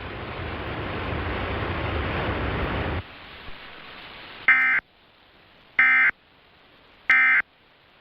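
A steady hiss for about three seconds, then the Emergency Alert System end-of-message code: three short bursts of warbling data tones, about 1.3 seconds apart, signalling the end of the alert.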